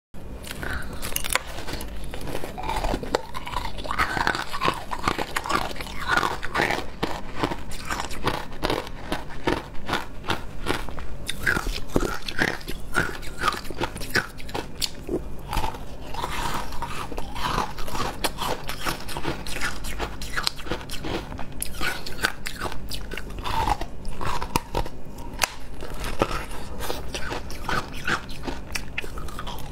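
Shaved ice with syrup being bitten, crunched and chewed, a dense crackling crunch that runs on without a break.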